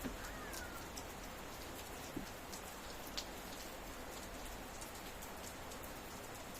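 Steady rain falling, with scattered individual drops ticking sharply against a surface.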